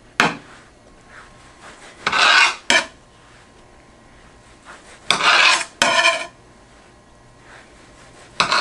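Serrated bread knife sawing through a rolled log of cinnamon-roll dough down onto a cutting board: short rasping strokes, mostly in pairs, about every three seconds.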